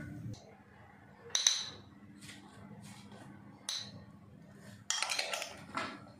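Steel kitchenware clinking as turmeric powder goes into a stainless steel mixer-grinder jar: one sharp clink about a second and a half in, a lighter knock later, then a short rattle of quick knocks near the end.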